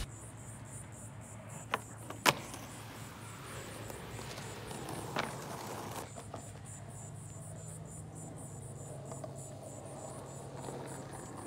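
Two sharp clacks of a skateboard deck hitting concrete about two seconds in, the second the louder, and a fainter clack about five seconds in, over a steady outdoor background with faint insect buzzing.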